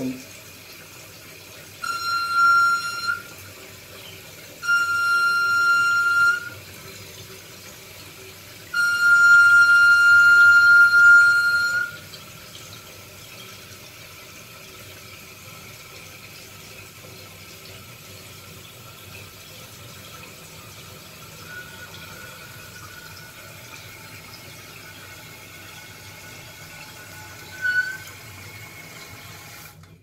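Toilet tank refilling after a flush, with water running while the fill valve gives a high-pitched squeak in three loud stretches, the last about three seconds long, then a faint steady whine. The squeak is a sign of a faulty fill valve, which the owner suspects as the cause; touching the valve stops it.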